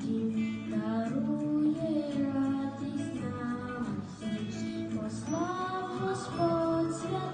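A Ukrainian Christmas carol (koliada) sung by a high voice over steady instrumental accompaniment, with long held and gliding notes.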